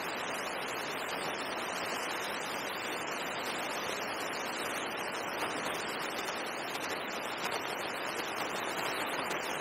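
Steady, even hiss like static, with no distinct sounds standing out.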